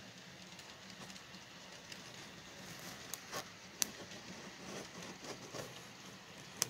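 Model freight cars rolling along a model railroad track: faint, irregular clicking and ticking over a low steady hum, with a sharper click about four seconds in and another near the end.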